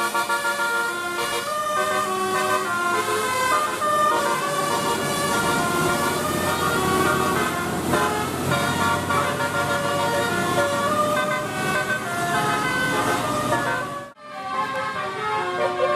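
Bus telolet horn, a set of multi-tone air horns, playing a melody in quick stepped notes. The sound breaks off abruptly about fourteen seconds in, then the horn tune starts again.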